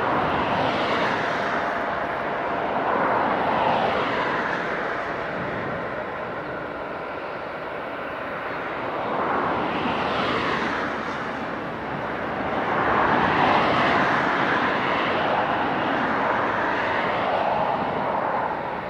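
Jet airliner engines: a Boeing 747-8 on the runway and a twin-engine widebody jet taxiing close by. The noise swells and fades several times and is loudest a little past the middle.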